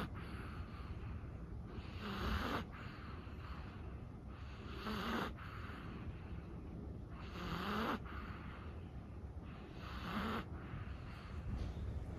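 A sleeping Chihuahua snoring, with one breath about every two and a half seconds.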